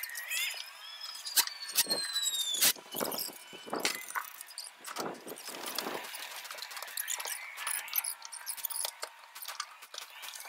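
Fast-forwarded sound of roofing work, pitched up into high squeaks and chirps with scattered sharp clicks and knocks, and almost nothing in the low range.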